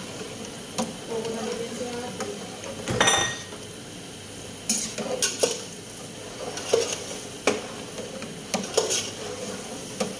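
A utensil stirring and scraping chicken, cabbage and carrots in a pan, with the food sizzling as it fries in soy sauce. A louder metallic clink rings out about three seconds in, and short scrapes recur throughout.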